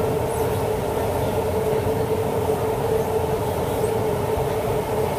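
Siemens C651 metro train running at a steady speed, heard inside the passenger car: a constant rumble of wheels and running gear with a steady mid-pitched hum.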